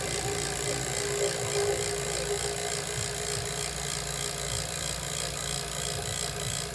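HVAC vacuum pump running steadily while evacuating an air-conditioning system's refrigerant lines, with the micron reading starting to come down.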